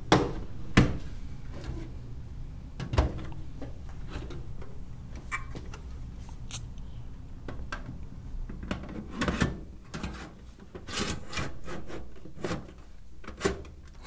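DVD drive and steel PC case parts being handled: scattered sharp clicks and knocks with scraping and rubbing as the drive is worked into the case's front drive bay, with small clusters of clicks about nine and eleven seconds in.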